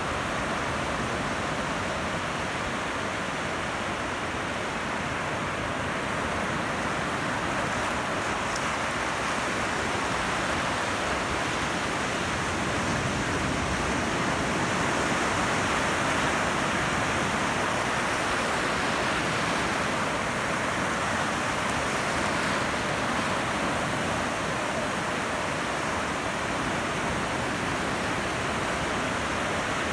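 Ocean surf breaking and washing in a steady, even rush, swelling a little about halfway through.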